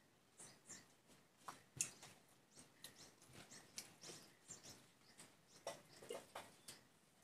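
Faint eating sounds: rice being mixed by hand on a banana leaf and chewed, a string of small wet clicks and smacks, the loudest nearly two seconds in.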